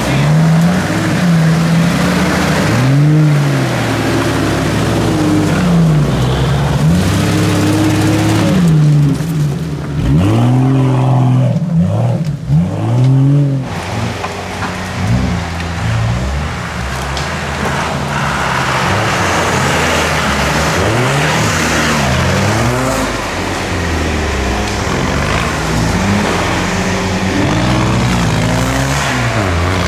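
Off-road 4x4 SUV engines revving up and down again and again as the cars labour through deep mud ruts. The pitch climbs and drops in repeated sweeps.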